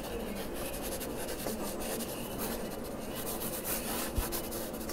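Pen writing on paper: the tip scratching and rubbing across the sheet in quick short strokes, with one soft knock about four seconds in.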